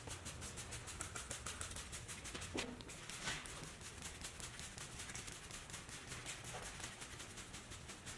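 Handheld trigger spray bottle pumped in quick repeated strokes, each pull a short hiss of mist, spraying iron remover onto a truck's paint. A low steady hum runs underneath.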